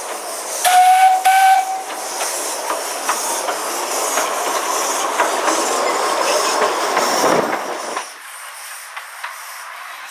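Small narrow-gauge steam locomotive giving two short whistle blasts about a second in, then running past with a steady hiss of steam and scattered clicks from the wheels and carriages. The sound drops away sharply about eight seconds in.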